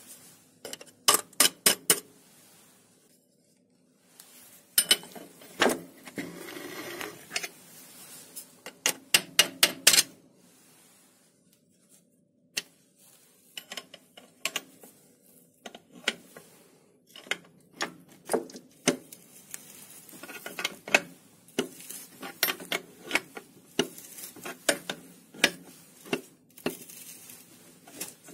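Bunches of sharp metallic clicks, several a second, as the threaded stud's nut is turned to press the clutch basket onto a 1K62 lathe's friction clutch shaft.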